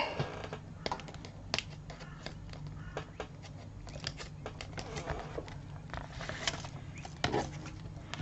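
Fingernail picking and peeling at the backing liner of double-sided Scor-Tape, small scattered clicks and faint paper rustling over a low steady hum.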